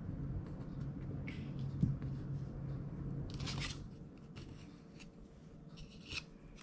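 Faint handling sounds of wooden craft sticks being pressed and set down on a wooden board: a few small clicks and a brief scraping rustle about halfway through. A low steady hum fades out about four seconds in.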